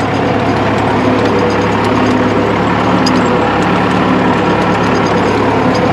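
Deutz 7206 tractor's air-cooled four-cylinder diesel running steadily as the tractor drives through snow on chained tyres.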